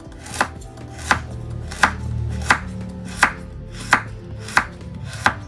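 Kitchen knife slicing galangal root thinly on a wooden chopping board: eight sharp, even chops, about three every two seconds.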